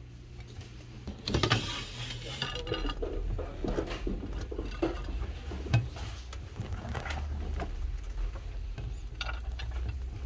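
Tortoises eating chopped zucchini and chicory leaves: crisp crunching bites and small clicks. The crunching comes in a dense run just after a second in, then in scattered bites.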